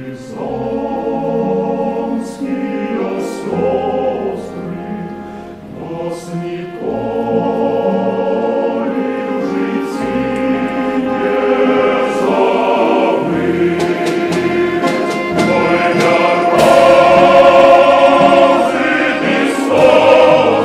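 Background music: a choir singing sustained chords, swelling louder in the second half.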